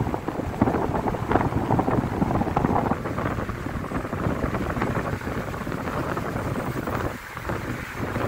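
Wind buffeting the microphone through an open window of a moving vehicle, with the vehicle's road noise underneath. It eases somewhat near the end.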